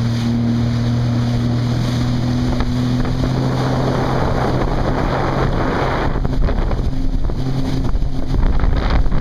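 A jet ski engine runs at a steady pitch over rushing water spray, with wind buffeting the microphone. After about six seconds the engine tone weakens and breaks up, and the wind noise grows louder.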